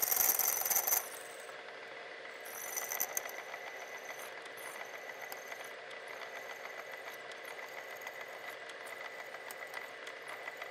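Milling machine spindle turning a twist drill through threaded rod (allthread) to make a cross hole for a handle: a steady machine whine with a fine scratchy chatter of the bit cutting. The cut is loudest and hissiest for about the first second.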